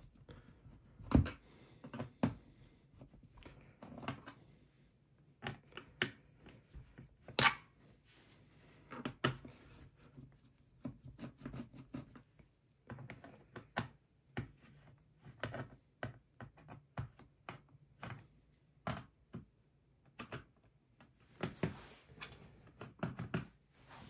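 Phillips screwdriver working the bottom-cover screws of a Dell Precision 3540 laptop: irregular small clicks and taps of the tool and fingers on the plastic case, the sharpest about a second in.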